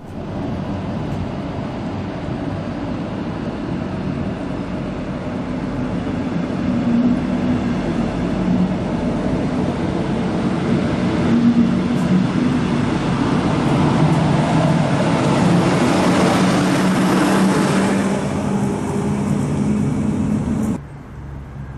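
DB Regio double-deck regional train rolling past along the platform: a steady rumble of wheels on rail with a low hum that wavers in pitch, growing louder toward a peak and then dropping away sharply about a second before the end.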